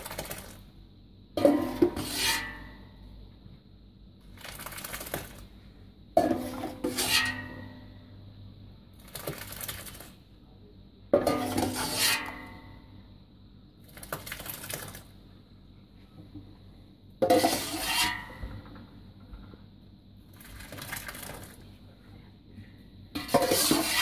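A metal cup scoops cheese curds and whey out of a stainless steel pot, clinking against the pot with a splash about every five seconds, five times in all. Between scoops, quieter splashing as the whey is poured through a cloth straining bag.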